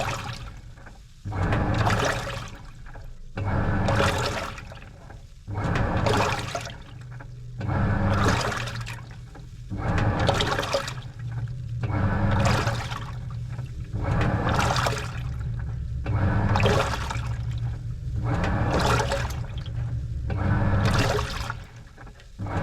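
Washing machine mid-wash: water and laundry sloshing in surges about every two seconds as the wash action turns back and forth, with the motor humming under each surge.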